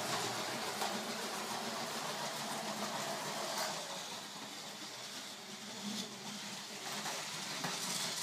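LEGO City High-Speed Passenger Train 60051 running on plastic LEGO track: its electric train motor whirring and its wheels clattering over the track joints with scattered clicks. It is louder as it passes close at the start and near the end, and quieter midway while on the far side of the layout.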